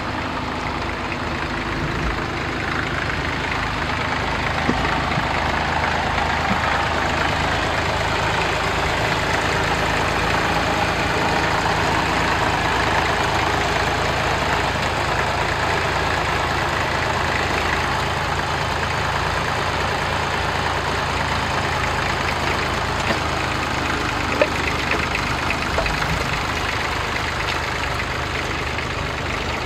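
Fordson Super Dexta tractor's three-cylinder diesel engine running steadily while working a two-furrow plough, with a few faint clicks late on.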